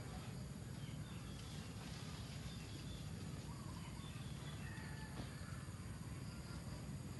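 Outdoor woodland ambience: a steady low rumble with a few faint, short bird chirps.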